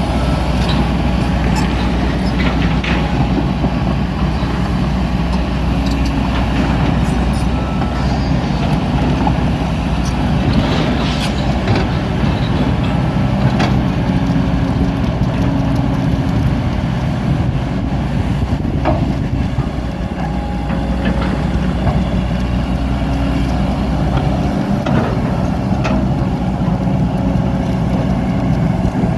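Kobelco SK200 hydraulic excavator digging soil: its diesel engine runs steadily under load, with occasional short clanks and knocks throughout.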